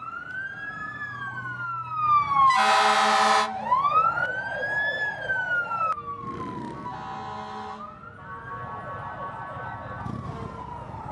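Fire engine siren wailing, slowly rising and falling every few seconds, with a loud horn blast lasting about a second starting about two and a half seconds in and a second, fainter horn blast near the middle.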